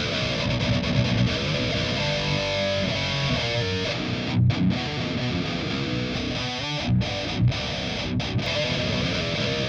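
Heavily distorted electric guitar through a Boss GT-10 high-gain patch, playing a metal riff. In the second half the sound cuts off sharply several times for brief moments, as the riff stops and restarts.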